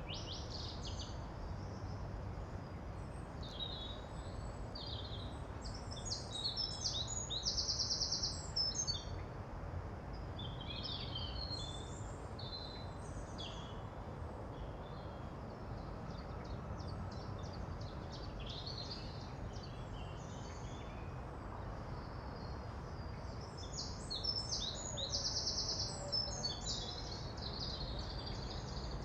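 Songbirds singing and chirping over a steady low background rumble. One bird sings the same quick phrase, ending in a fast buzzy trill, twice: about six seconds in and again near the end.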